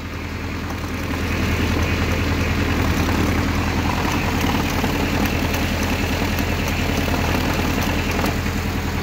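Electric starter cranking the 1959 Case 800 tractor's diesel engine, turning it over at a steady, even pace without firing. It picks up a little speed about a second in.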